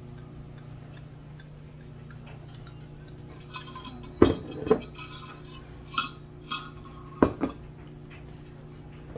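Whisk clinking against a glass mixing bowl while wing sauce is stirred: about six sharp clinks in three quick pairs, each with a short glassy ring.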